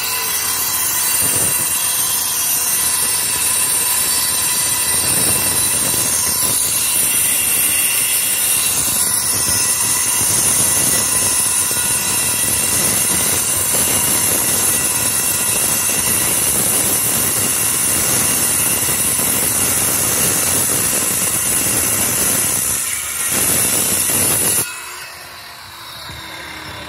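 Makita angle grinder with a cutting disc grinding through a granite kerb stone: a steady, loud, high grinding whine. It dips briefly and then cuts off about two seconds before the end.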